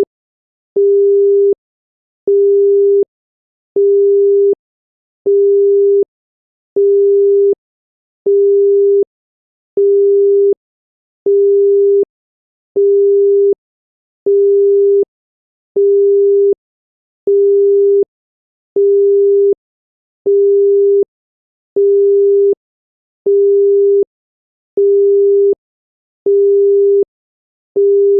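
Indian telephone busy tone: a single steady 400 Hz tone beeping on and off evenly, about three-quarters of a second on and three-quarters off. It tells the caller that the line is busy.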